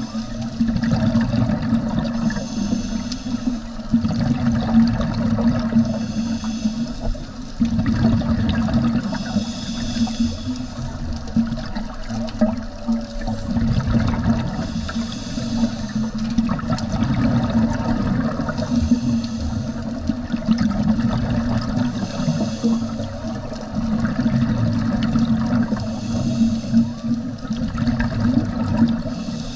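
Underwater sound heard through a camera housing: a scuba diver's regulator breathing, with a hissing rush of exhaled bubbles every three to four seconds over a steady low water rumble.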